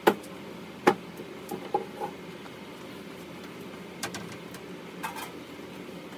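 Scattered sharp knocks and clicks, about half a dozen, as the pinball machine's cabinet and backbox are handled and opened, over a steady low hum.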